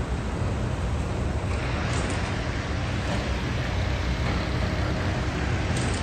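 Steady city street traffic noise from passing vehicles. A hiss grows stronger about a second and a half in.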